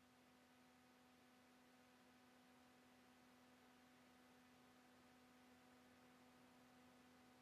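Near silence: a faint, steady hum with a few overtones over light hiss.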